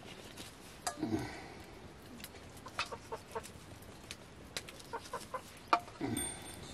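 A hen clucking in short calls, mixed with light clicks of dried meat pieces being handled in a steel bowl.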